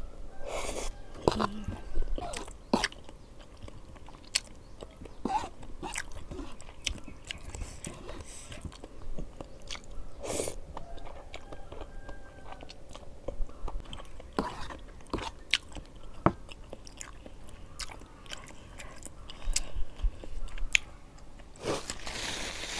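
Close-up eating sounds of someone chewing and slurping cheesy Samyang carbonara noodles, with wet mouth noises and scattered sharp clicks. A brief rustling hiss comes near the end.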